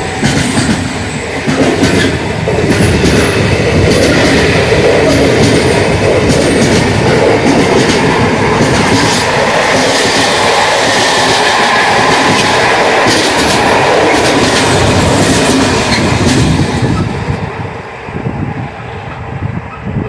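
Container freight train's loaded flat wagons rolling past at speed, a loud steady rumble with the wheels clattering over the rails. About three-quarters of the way through, the last wagon passes and the sound drops away as the train moves off.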